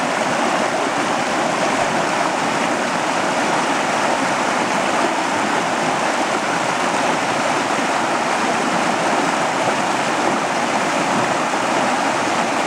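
Stream water cascading over rocks: a steady, loud rush of whitewater.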